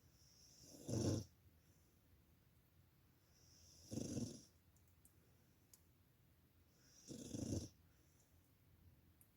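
A sleeping dog snoring: three short snores about three seconds apart, each lasting about half a second.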